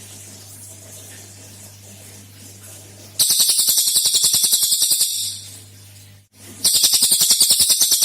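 Cililin songbird giving its rapid 'tembakan' (shot) song: two loud, fast, high-pitched trills of about nine notes a second, each lasting about two seconds. The first starts about three seconds in and the second near the end. A steady low hum sits underneath.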